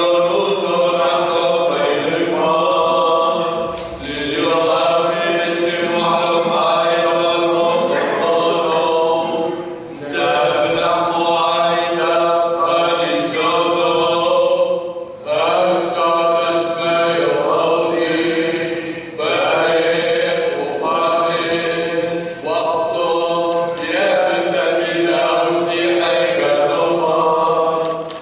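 Voices singing Syriac Catholic liturgical chant in long phrases, with short breaks between them.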